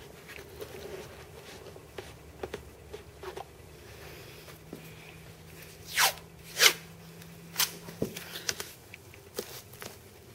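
Blue masking tape pulled off its roll in two quick rips about six seconds in, a smaller rip shortly after, amid light handling taps and rustles.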